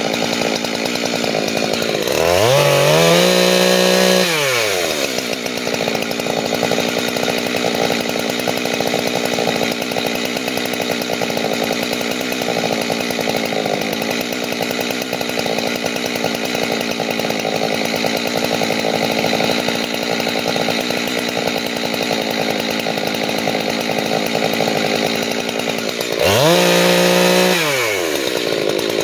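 Jonsered 2186 two-stroke chainsaw with a 32-inch bar cutting through a log, the engine held down under load in the cut. Twice, about two seconds in and again near the end, it revs up to a higher, louder pitch and drops back.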